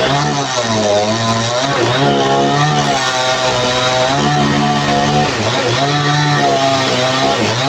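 Engine-driven saw cutting heavy timber, its small engine running steadily loud with the pitch repeatedly sagging under load and picking up again.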